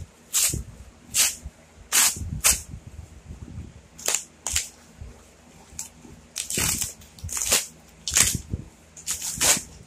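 Cardboard mailer being torn open by hand: a series of short, sharp ripping tears, about a dozen in ten seconds, with duller thumps of the box being handled between them.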